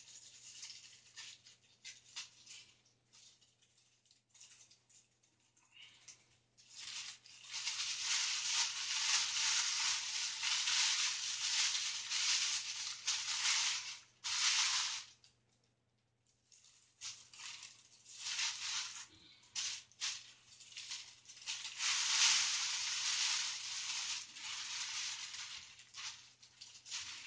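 Thin plastic bag crinkling and rustling as it is pulled up and off a tower speaker. Scattered crackles come first, then two long stretches of steady rustling with a brief pause between them.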